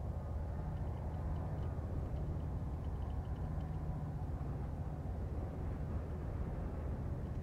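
Diesel locomotives heading an aggregate train, heard from a distance as a steady low engine drone.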